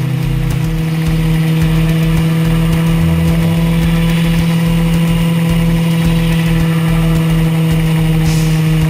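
Honda RC51 sport bike's V-twin engine running at a steady cruise, a constant even drone under the rush of wind and road noise at speed.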